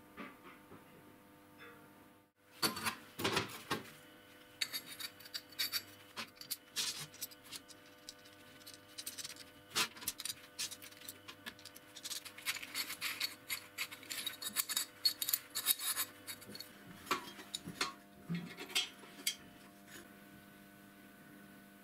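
Irregular metallic clinks and knocks from small steel parts and tools being handled on a steel workbench as a bearing blade-guide bracket for a homemade band saw is put together and fitted, over a faint steady hum.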